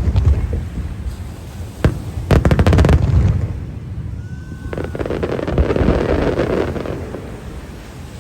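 Aerial fireworks bursting: a bang about two seconds in, then a rapid string of cracks, followed by a longer, softer spell of noise.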